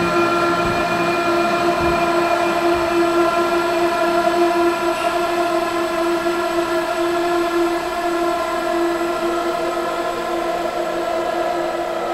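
Sustained drone from a film soundtrack: several steady pitches held together as one unchanging chord, easing slightly in level in the second half.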